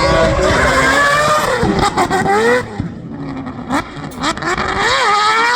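A race car engine revving hard, its pitch sweeping up and down. A few sharp cracks come about two seconds and four seconds in.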